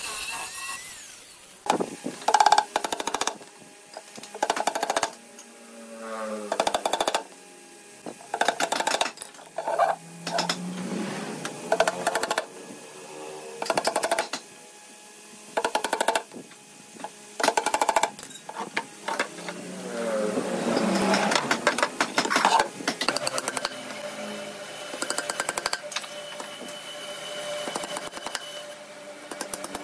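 Clusters of quick hammer blows driving nails into wooden drawer panels, several strikes to each burst, repeated throughout. In between, a small angle grinder with a sanding disc whines up and down in speed.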